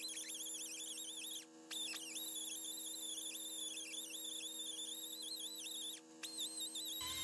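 High-speed rotary tool with a small wire wheel, a thin wavering whine whose pitch dips as the wheel is pressed onto the old steel file to brush it clean. Twice, about a second and a half in and again near six seconds, the pitch drops sharply and comes back up.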